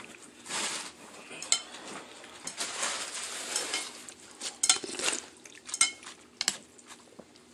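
Spoon and utensils clinking against a bowl of noodle soup, with several sharp clinks and longer swishing stretches as the broth and noodles are stirred.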